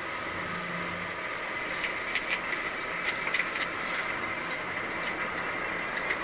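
Articulated lorry running at low speed, heard from the cab: steady engine and road noise, with a run of short rattles and clicks about two to three and a half seconds in.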